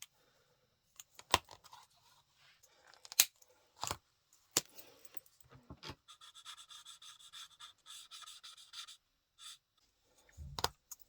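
Craft tools handled on a desktop: scattered clicks and taps, then about three seconds of quick, squeaky back-and-forth strokes as the stamped image is coloured in on cardstock, and a knock near the end.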